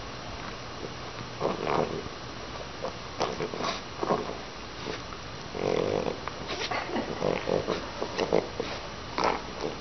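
Bulldog making short, irregular grunting and snuffling noises, coming in clusters of quick bursts.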